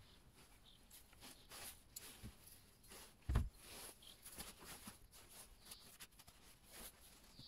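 Quiet handling of a Stihl MS 231 C chainsaw: faint clicks and rustles, then one dull thump a little over three seconds in as the saw is set down on a cardboard-covered plastic bin.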